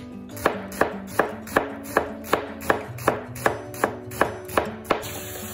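Chef's knife slicing a red onion thinly on a plastic cutting board, the blade knocking the board in an even rhythm of about three strokes a second. The slicing stops about five seconds in.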